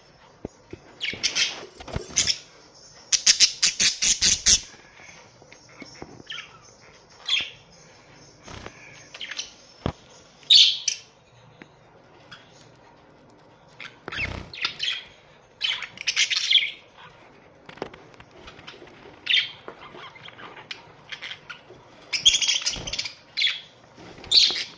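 Budgerigars chirping and chattering in irregular bursts, with a fast run of repeated calls a few seconds in. A sharp click about ten seconds in is the loudest sound.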